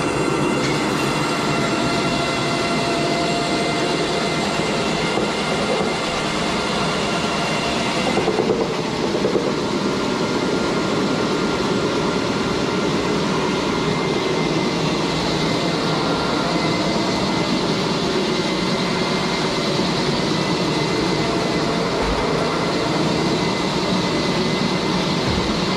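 Rotary carpet extraction machine running: a steady suction rush with a motor whine as the spinning head works the carpet. About a third of the way in the high whine drops away and there are a few brief bumps in loudness.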